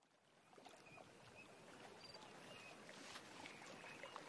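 Faint running-water ambience fading in from silence, with small clicks and a few short high chirps.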